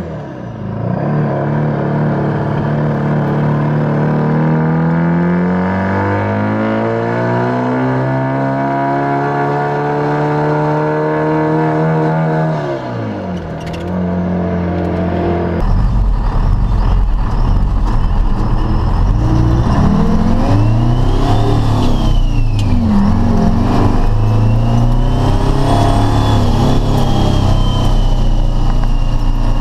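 Two-stroke Detroit Diesel 4-53 engines heard from inside the cab under way. The first pulls steadily up through the revs for about twelve seconds, then drops off. After a cut, a second one accelerates and eases off with a heavier low rumble, and a thin high whistle rises and falls above it.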